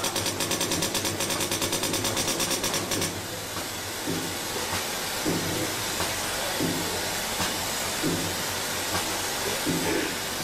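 EFD jet dispensing valve firing rapidly as it shoots red glue dots onto a circuit board, a fast even ticking of several strokes a second. About three seconds in the ticking stops, leaving a steady hiss with a soft knock about every second and a half.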